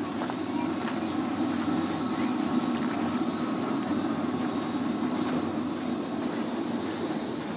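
Steady low mechanical hum with an even background din, unchanging throughout; no distinct event stands out.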